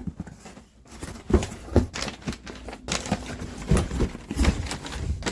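A thick cardboard shipping box being cut and torn open: irregular scraping, ripping and sharp knocks.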